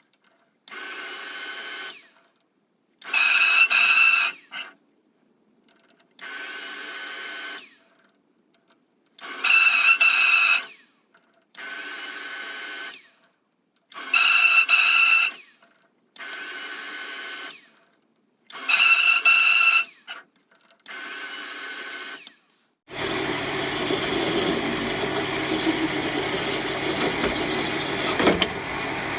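Lathe running in short bursts of about a second, each starting and stopping sharply, quieter and louder runs alternating roughly every two and a half seconds. About 23 seconds in a steadier, louder running noise with a low hum takes over.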